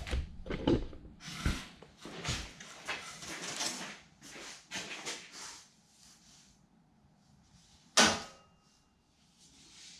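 Handling noises: a run of irregular knocks and rustles, then a pause, then one louder knock or scrape about eight seconds in.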